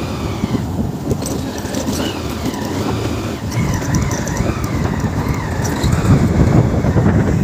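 A vehicle travelling by road, a steady dense running and road noise. A thin high tone wavers up and down for a few seconds in the middle.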